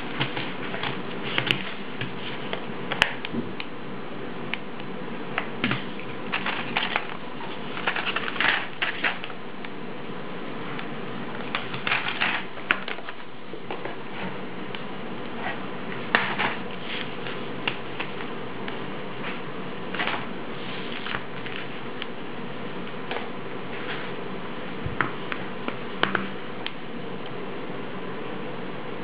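Irregular clicks, taps and clatter of product packages and a handheld barcode-scanner sled being handled on a table, some in quick clusters, over a steady low hum.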